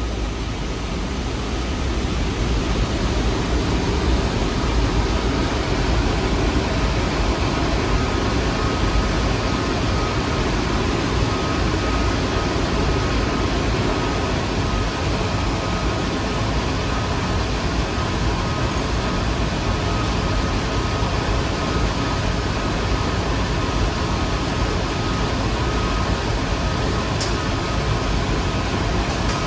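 Steady noise of a New York City subway train, rising over the first couple of seconds and then holding level, with a faint constant tone running through it.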